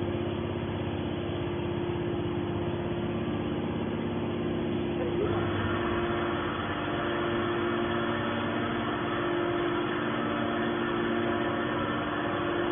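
Hydraulic scrap metal baler running: a steady hum from its power unit, joined about five seconds in by a higher hiss.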